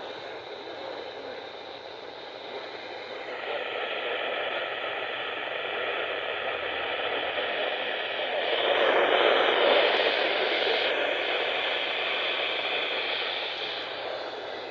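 Weather radio receiver tuned to a weak NOAA Weather Radio signal, giving a steady hiss of static with a faint broadcast buried underneath. The static swells louder about halfway through, then eases off.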